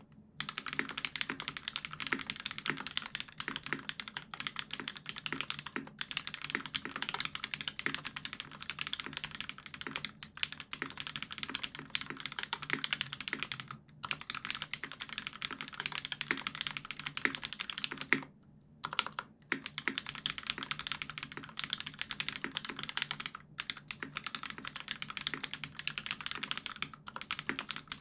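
Continuous fast typing on a UTD356Mini mechanical keyboard with lubed Hyperglide Cherry MX Black linear switches, an aluminium plate and GMK keycaps: a rapid, dense stream of key clacks. It breaks off briefly about 14 seconds in, and for about a second around 18 seconds in, just after one louder key strike.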